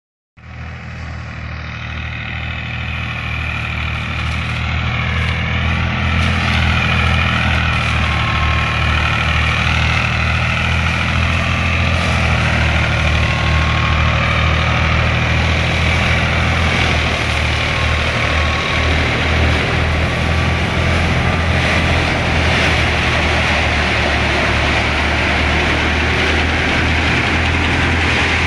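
A tractor-driven paddy thresher running: a steady low engine hum under load, with a high whine above it that wavers in pitch, as rice sheaves are fed into the machine. The sound swells up over the first couple of seconds, then holds steady.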